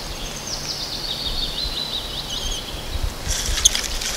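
A songbird sings a falling trill of quick high notes lasting about two seconds, over steady outdoor background noise. Near the end comes a short run of sharp clicks.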